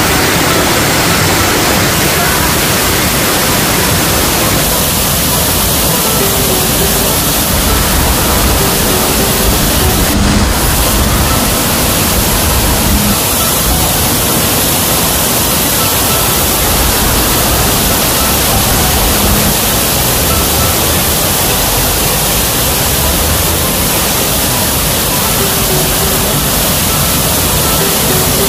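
Waterfall: falling water rushing in a steady, dense wash of noise.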